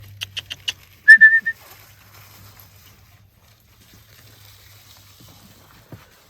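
Four quick sharp clicks, then a short, loud whistled note at one high pitch, wavering slightly.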